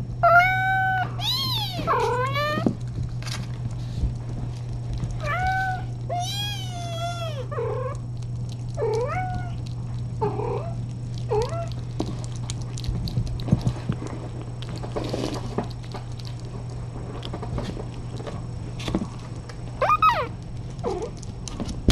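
Kittens mewing repeatedly: short, high, thin calls that rise and fall in pitch, many in the first dozen seconds and a few more near the end, over a steady low hum.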